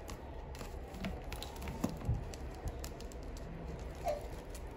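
Light, irregular clicks and rustling of clear plastic zippered cash-envelope pouches being handled.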